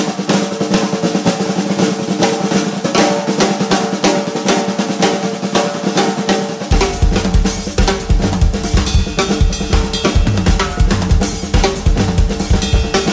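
Drum kit played fast and dense, with rapid snare and tom strokes and cymbals over a steady ringing tone. Heavy, low bass-drum strokes come in about halfway through.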